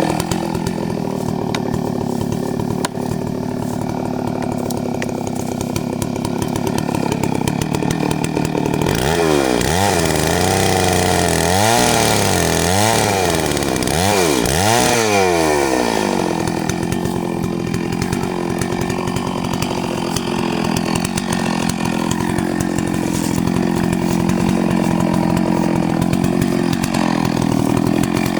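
Two-stroke chainsaw running steadily, its engine revving up and down about five times in a row partway through before settling back to an even pitch.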